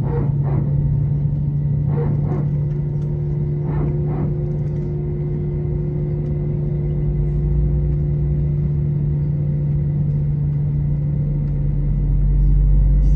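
Steady low hum inside an Airbus A321 cabin, with a deeper rumble that swells about halfway through and again near the end.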